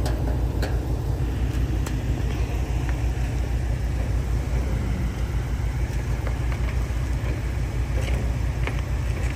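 A vehicle engine idling steadily with a deep, even rumble, with a few faint ticks over it.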